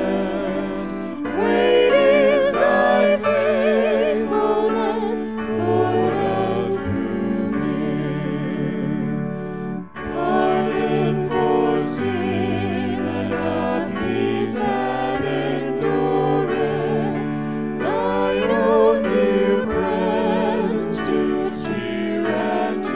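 Hymn sung by a choir with vibrato over held accompaniment chords, with a brief break between phrases about ten seconds in.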